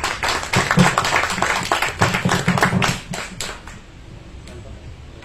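A small group of people applauding, the clapping dying away after about three and a half seconds.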